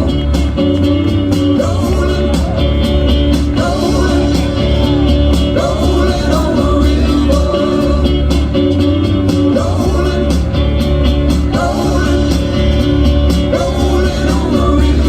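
Live nu-metal band playing loud through a concert PA, with heavy bass pounding out a steady beat under guitar and wavering pitched lines.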